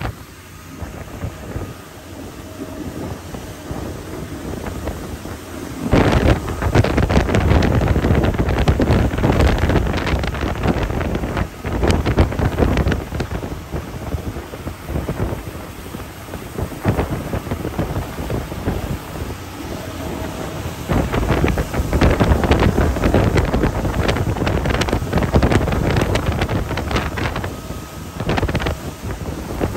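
Wind buffeting the microphone on a moving boat, loud and gusty. It is quieter for the first few seconds, then grows heavy about six seconds in.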